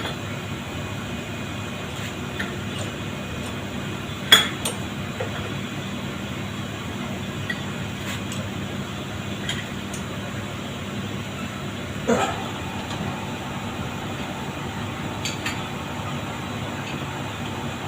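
Metal hand tools clinking and knocking now and then against metal parts, with one sharp clank about four seconds in and another about twelve seconds in, over a steady low hum.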